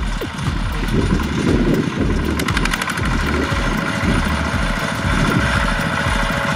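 Single-cylinder diesel engine of a two-wheel walking tractor, a Kubota RT120, chugging steadily with a pulsing low thud while it pulls a straw rake through a harvested rice field. A brief burst of clattering comes about two and a half seconds in.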